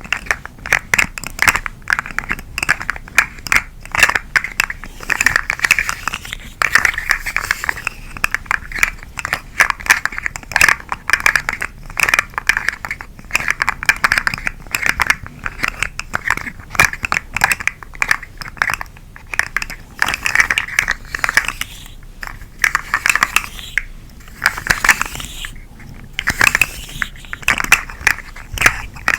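Dense, rapid crackling and crinkling from a twisted macaron-caterpillar toy being handled and squeezed close to the microphone.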